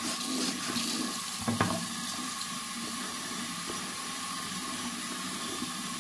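Bathroom sink tap running in a steady stream, the water splashing over a shoe held under it and into the basin. A single knock sounds about a second and a half in.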